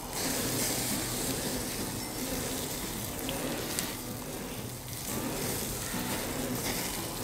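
Deboned chicken thighs sizzling and crackling on the grate of a charcoal Weber kettle grill while being dabbed with a butter mop. The sizzle eases briefly about four seconds in and then picks up again.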